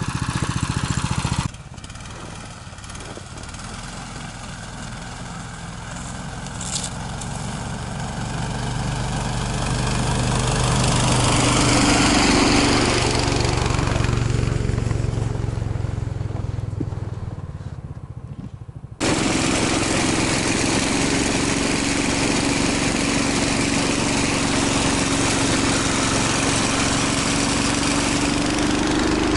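Small engine of a motorized towing unit (snow tug) running under way as it sets off hauling a loaded sled. It swells to its loudest about twelve seconds in and fades, then jumps to a steady, louder run about two-thirds of the way through.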